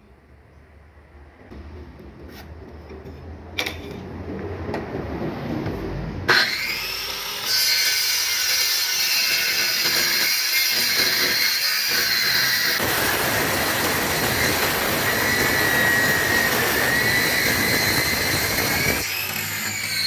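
Maktec circular saw crosscutting the end of a thick solid-wood slab: a loud, steady rasp with a faint whine that starts sharply about six seconds in and runs for some thirteen seconds, after a quieter start.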